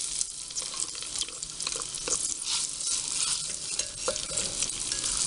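Chopped red onions sizzling in hot oil and fried garlic in a glass pot, stirred with a spoon that scrapes and now and then clinks against the glass. The steady sizzle is dotted with small crackles.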